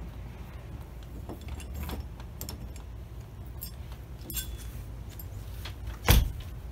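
Small metal clicks and rattles of a shed door's latch handle being fitted and handled, then one loud thump near the end.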